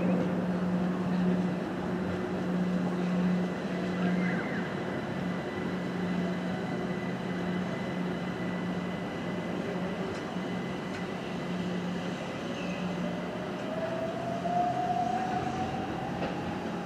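Electric multiple-unit train at the station, running with a steady low hum and a thin high tone, and a whine that rises in pitch over the last few seconds as its traction motors take power.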